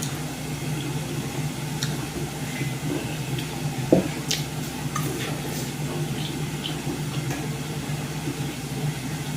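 Eating by hand: small wet smacks and clicks over a steady low hum, with one sharper click about four seconds in.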